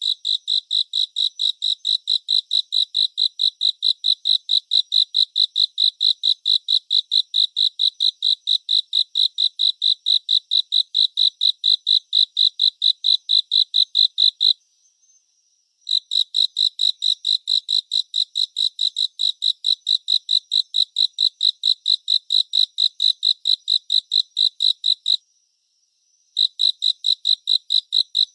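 Cricket chirping: a steady, even train of short high-pitched pulses, about four or five a second, that breaks off twice for about a second before starting again.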